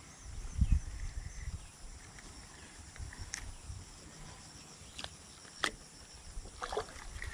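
Outdoor ambience of small high chirps from birds or insects, with a few sharp clicks from a spinning rod and reel being handled.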